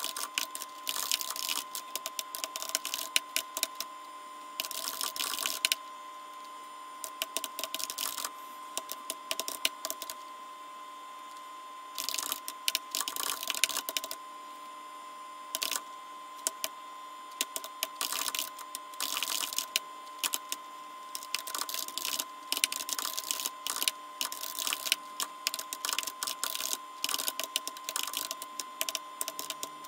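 Computer keyboard being typed on in quick bursts of clicking keystrokes, with pauses of a few seconds between bursts. A steady thin whine runs underneath.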